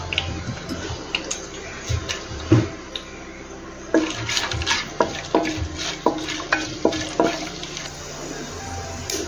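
Wooden spoon stirring whole spices in hot oil in a non-stick pan, with a light sizzle of the spices frying. From about four seconds in, the spoon knocks against the pan two or three times a second for a few seconds.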